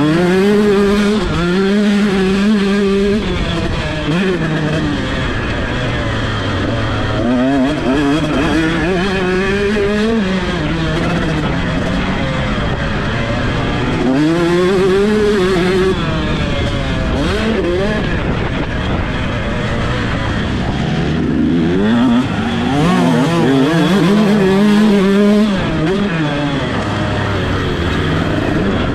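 125cc two-stroke motocross bike at full throttle, revving up through the gears, its engine pitch climbing, dropping at each shift and climbing again several times.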